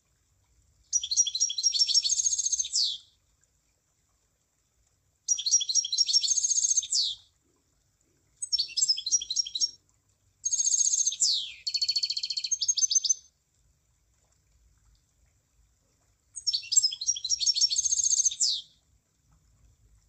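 Emprit (munia) singing five short phrases of quick, high twittering notes, each a second or two long with brief pauses between. Most phrases end in a downward-sliding note.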